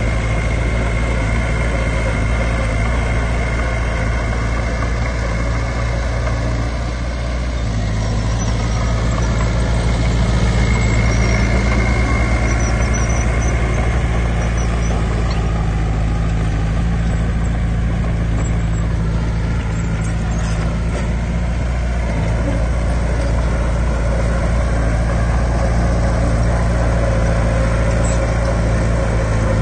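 Heavy diesel engine of earthmoving machinery running steadily. About seven seconds in, its note dips briefly, then picks up and holds a little higher.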